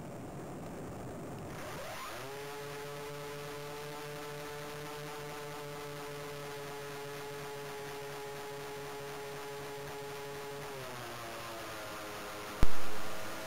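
Motor and propeller of a radio-controlled model Heinkel He 219, heard from its onboard camera: an airy rush for the first two seconds, then the motor whine rises and holds a steady pitch, dipping slightly about eleven seconds in. Near the end a single sharp knock, the loudest sound, dies away within a second.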